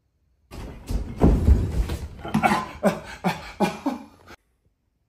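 A person's voice in a run of short wordless cries, each falling in pitch, after a second or so of rumbling noise; it stops suddenly near the end.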